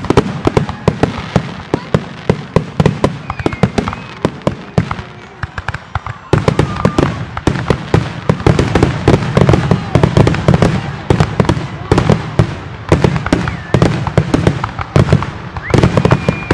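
Fireworks finale barrage: aerial shells bursting in rapid succession, many bangs a second. After about six seconds the bursts come thicker, into a near-continuous crackling over a low rumble.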